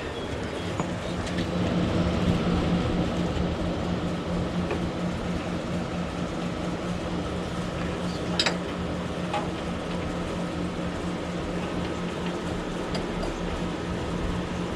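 A steady mechanical hum with a constant low tone, and a single sharp click a little past halfway.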